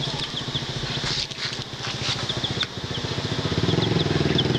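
A small engine running with a steady pulsing note that grows louder about three and a half seconds in, while chicks peep faintly in short chirps.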